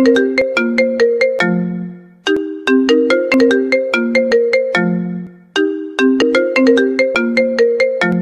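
Apple iPad ringtone playing a short tune of quick notes that starts over about every three and a third seconds, each pass ending on a longer low note.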